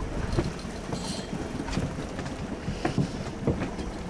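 Wind buffeting the microphone and water slapping against a small boat's hull, with irregular knocks and thumps scattered through it.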